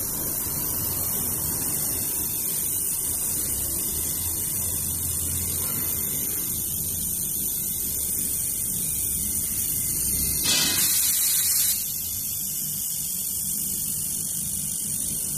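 2000 W handheld fiber laser welding machine at work on stainless steel: a steady high hiss over a low electrical hum, with a louder burst of hiss about ten and a half seconds in that lasts just over a second.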